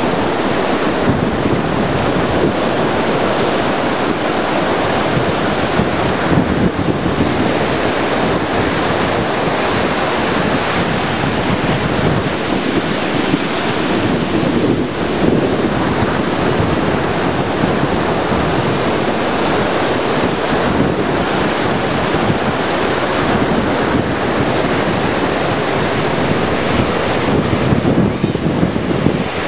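Hurricane-force wind buffeting the microphone over heavy storm surf washing up a sandy beach. It is a loud, steady rush of noise throughout.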